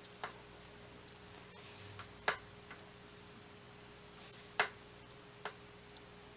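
A few sharp, light clicks and taps of small craft items handled on a tabletop, about five in all, the loudest about two seconds in and again past the middle, each of those two just after a brief soft rustle.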